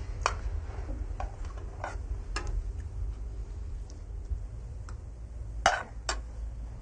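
Spoons and cutlery clinking against dishes at a family meal: a handful of short, irregular clinks, the loudest near the end, over a steady low hum.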